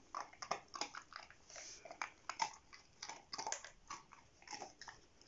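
A Bernese mountain dog puppy nosing and mouthing a plastic treat-puzzle board, with faint, irregular clicks and clacks as its lids and pegs move, and chewing as it gets at the treats inside.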